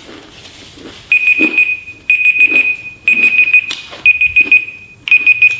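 Smartphone timer alarm going off: five high, pulsing beeps on one pitch, about once a second.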